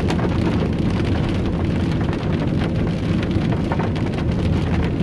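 Heavy rain pouring steadily, a loud even wash of noise with the patter of countless drops.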